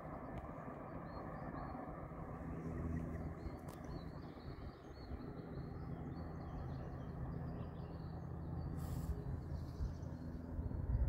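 Small birds chirping and twittering, clearest in the middle stretch, over a steady low outdoor rumble.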